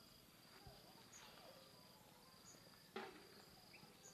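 Near silence, with insects making a faint, steady high-pitched trill that stops and starts. A single soft click comes about three seconds in.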